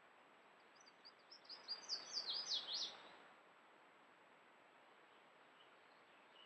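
A songbird singing one short song: a run of high notes that speed up and grow louder, ending in a few downward-slurred notes, about a second in, over a faint steady outdoor hiss.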